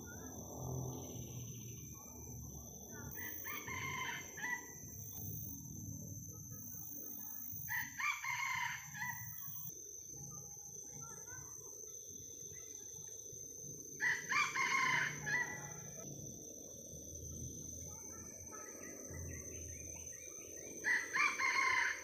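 Red junglefowl cock crowing four times, each crow about a second and a half long, several seconds apart, over a low forest background hum.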